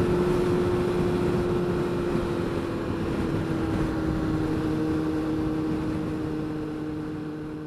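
Triumph Speed Four's inline-four engine running smoothly at a steady cruise, with wind rush over the helmet microphone; the motorcycle no longer stutters now that a loose battery positive terminal has been tightened. The sound fades out near the end.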